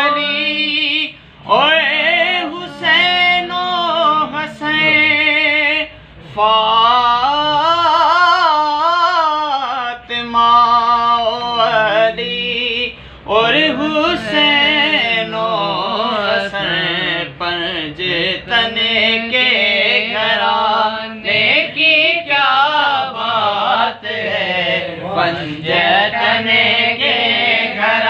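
A man singing a naat unaccompanied, drawing out long, wavering ornamented notes.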